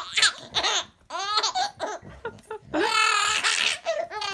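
Baby laughing in a string of short bursts, with a longer, louder peal about three seconds in.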